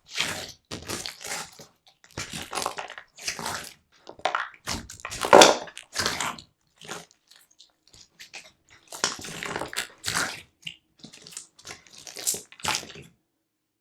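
Slime being squished and worked by hand, making a string of irregular squelching, crackling bursts. They stop short about a second before the end.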